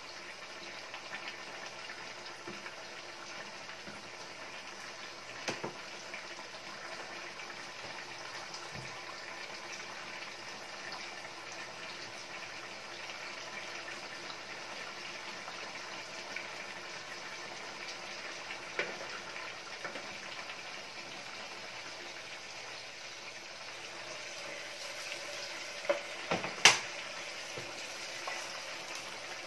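Pork adobo simmering in a stainless steel pan, a steady bubbling hiss, with a few light knocks. A sharp clank stands out about three seconds before the end.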